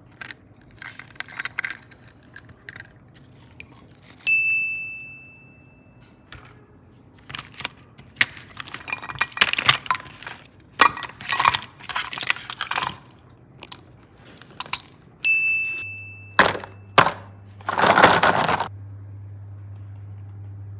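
Slime being worked by hand, with sharp clicking and crackling. A bright ding rings out twice, about four seconds in and again near fifteen seconds, each fading away.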